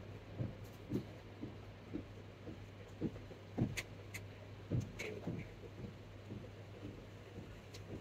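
Faint small knocks and a few sharp clicks from tool handling at a micro-soldering bench, over a steady low hum.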